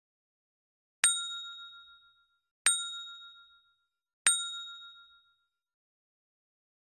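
Notification-bell ding sound effect for a subscribe reminder: three bright dings about a second and a half apart, each ringing out and fading over about a second.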